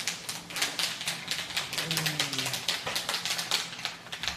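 Lay's potato chip bags crinkling as they are squeezed in a hug against the chest: a dense, irregular run of sharp crackles of the metallised plastic film.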